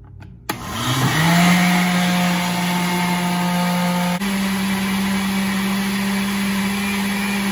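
Oster Duralast Classic countertop blender switched on with a click about half a second in; its motor spins up and runs steadily, blending a liquid coconut mixture. About four seconds in the motor's pitch steps up, and it keeps running at that higher pitch.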